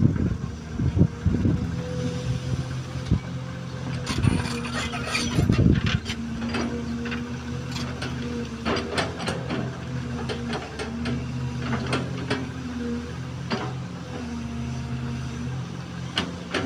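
XCMG XE215C hydraulic excavator's diesel engine running steadily under work, with scattered knocks and clanks and a louder rough stretch about four to six seconds in.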